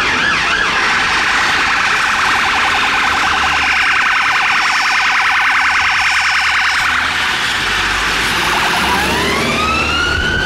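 Police car siren on a responding unmarked police car. It starts as a fast warbling yelp and switches to a rapid pulsing tone. Near the end it changes to a wail that rises in pitch, over low traffic and engine rumble.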